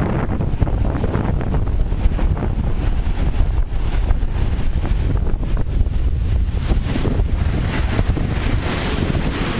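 Strong wind buffeting the microphone with a steady low rumble, over the continuous rushing wash of heavy storm surf breaking and spreading foam up the beach, driven by Hurricane Sandy passing offshore.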